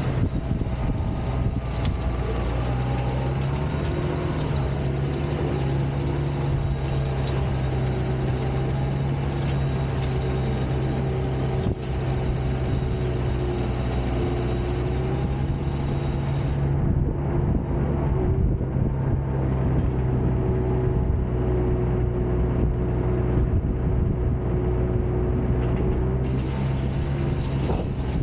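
Modern farm tractor's diesel engine running steadily under load while pulling an implement across a field. The engine note rises slightly about four seconds in, then holds even.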